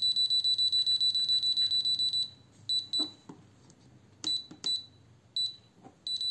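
Cheap 2.4 GHz pistol-grip RC transmitter beeping as its throttle trim buttons are pressed. A rapid run of high beeps, about nine a second, lasts about two seconds. A few single beeps with faint clicks follow, and another rapid run starts just before the end.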